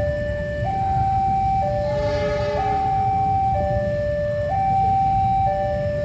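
Railway level-crossing warning alarm sounding a two-tone signal, switching between a low and a high tone about once a second, over a steady low rumble. A brief faint horn sounds about two seconds in.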